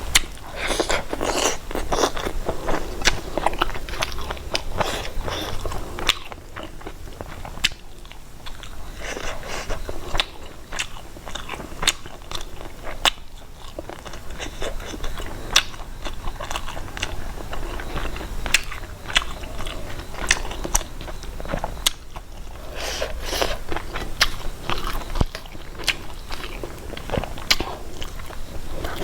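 A person chewing and biting food close to the microphone, with crunchy bites and many sharp mouth clicks. The chewing is busiest in the first few seconds and again near the end.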